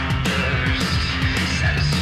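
Loud rock music with electric guitar over a driving drum beat.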